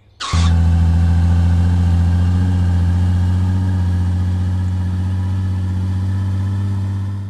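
Car engine sound effect: it starts suddenly with a short hiss, then runs at a steady, deep drone that grows slightly quieter as the car drives off, and cuts off near the end.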